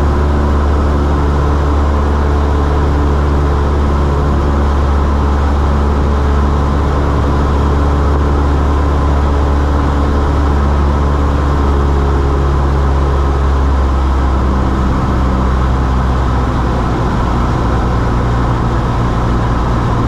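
Cessna 172's piston engine and propeller running steadily in cruise, heard from inside the cockpit as a loud, even drone; its tone shifts slightly about fifteen seconds in.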